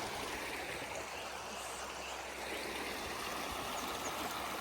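A fast river stream rushing and splashing over rocks in a steady, even wash of water noise.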